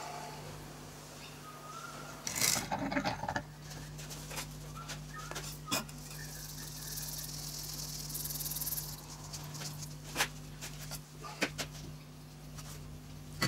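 Moulding sand tipped from a round metal pan into a wooden foundry flask, with a soft hiss of falling sand a few seconds long past the middle. Clicks and knocks come as the flask and the metal sprue pipes are handled, the loudest cluster early on. A steady low hum runs underneath.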